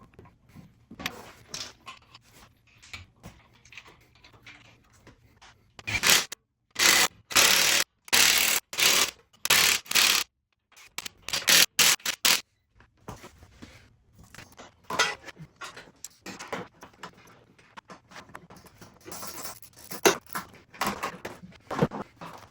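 Irregular scraping and clinking of hand tools and metal parts. In the middle there is a run of loud noisy strokes, each about half a second long, with sudden silent breaks between them.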